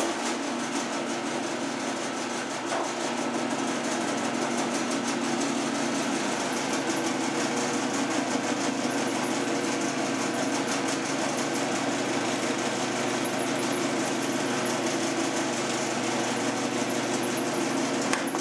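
Milling machine spindle motor switched on and running steadily, with a spinning face cutter just skimming the top of an aluminium part to touch off the depth. It is a steady machine hum over a broad hiss, starting suddenly.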